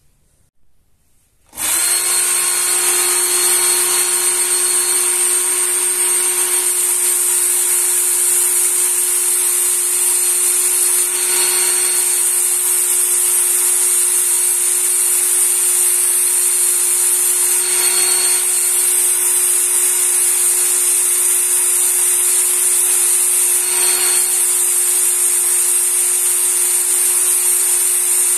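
Work Sharp knife sharpener switched on at maximum speed about a second and a half in, its motor and abrasive belt then running with a steady hum and high whine. A kitchen knife is drawn slowly across the running belt, with a slight change in the sound about every six seconds as each stroke begins.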